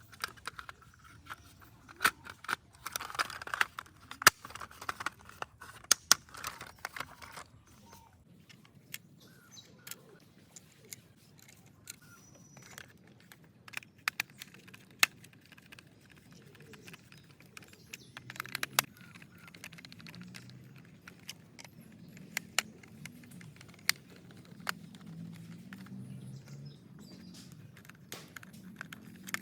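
Small plastic toy parts clicking and rattling as they are handled and fitted together: scattered sharp clicks, busiest during the first several seconds.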